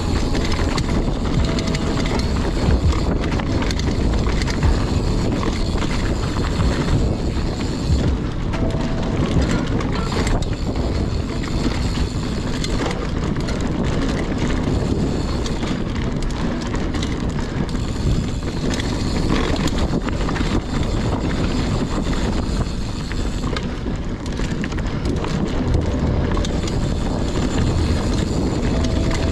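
Mountain bike riding fast down a trail: tyres rumbling over the rough ground and wind buffeting the microphone, a steady loud rushing noise throughout.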